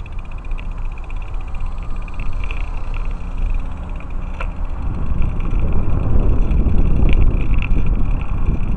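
Wind buffeting the microphone and road rumble from a bicycle being ridden, growing louder about five seconds in, with a few faint clicks.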